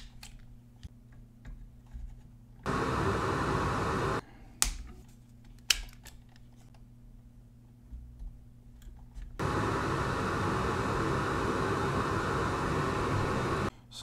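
A small electric motor on the soldering bench running with a steady whoosh in two stretches, switched on for about a second and a half, then again for about four seconds near the end, each starting and stopping abruptly. A sharp click of a self-adjusting wire stripper at the start, and a couple more sharp clicks about five seconds in.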